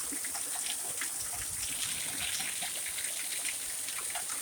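Storm rain falling steadily, with water trickling and many small drips and splashes.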